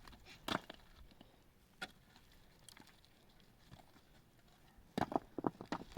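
Scattered sharp knocks: one about half a second in, another near two seconds, then a quick run of five or six knocks near the end.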